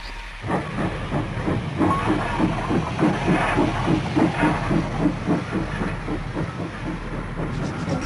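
Steam locomotive chuffing at a steady rhythm of about three puffs a second, with hissing steam. It sounds like a recorded sound effect rather than the island's real train.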